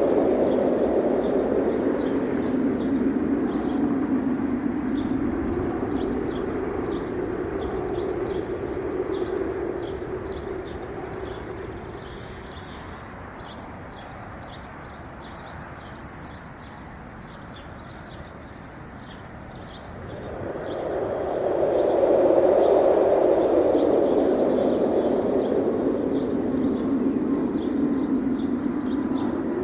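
Wind blowing in gusts, strong at first, easing to a lull in the middle and rising again about two-thirds of the way through, while small birds chirp throughout.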